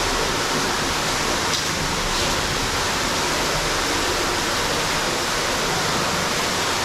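Underground waterfall, a steady rush of falling water.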